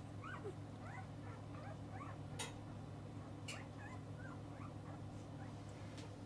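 A litter of newborn puppies squeaking and whimpering in many short high cries, over a steady low hum, with a few sharp clicks.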